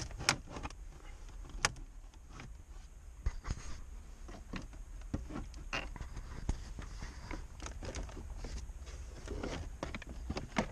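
Scattered clicks, knocks and rattles of plastic dashboard trim and the glove box being handled and pulled at inside a car, with a few sharper knocks standing out.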